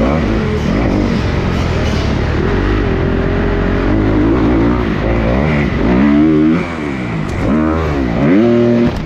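2020 Kawasaki KX250 four-stroke single-cylinder motocross engine under hard throttle, revving up and chopping off again and again between jumps and turns. Two long high-rev pulls in the second half are each cut off sharply.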